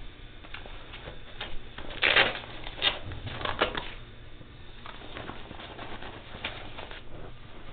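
Clothing and an arm rubbing and brushing against a body-worn camera's microphone, making rustling and scraping noise that is loudest about two to four seconds in. A low steady hum runs underneath.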